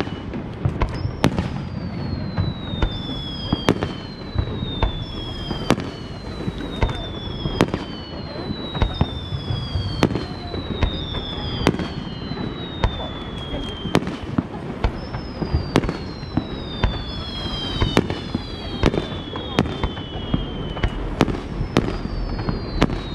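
Aerial fireworks shells bursting in a steady run of sharp bangs over a low rumble, with high whistles that fall in pitch, one starting about every second or two.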